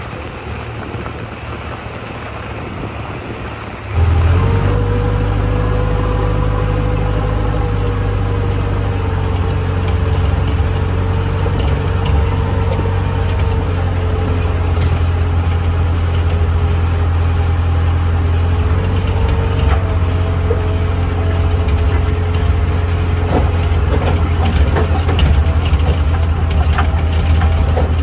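JCB 3DX backhoe loader's diesel engine running steadily as the machine drives, with a low drone and a wavering whine above it. For the first few seconds it is fainter under wind on the microphone; about four seconds in it becomes much louder, heard from inside the cab.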